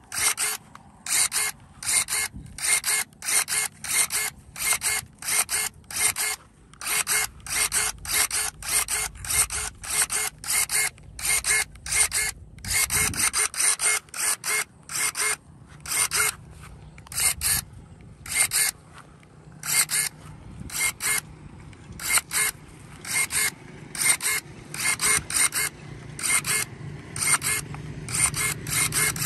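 Cordless electric pruning shears with a gear-driven blade, their motor whirring in short bursts as the blade snaps shut and opens again stroke after stroke, about one or two a second with a few brief pauses.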